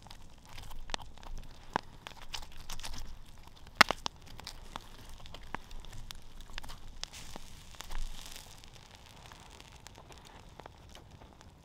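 Campfire crackling with scattered sharp pops, one much louder about four seconds in, while a knife cuts and tears slices from the crisp crust of a roasted hunk of meat.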